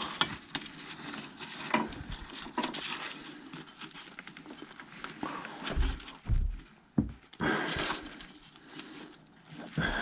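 Scattered clicks, knocks and rustling of hands and tools working a new drive belt and its retaining clip on a snowblower, with a couple of low thumps about six seconds in.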